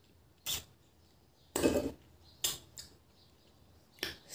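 Eating by hand at a brass plate: about five short, separate sounds of fingers and food against the metal plate and chewing, the loudest a little under two seconds in.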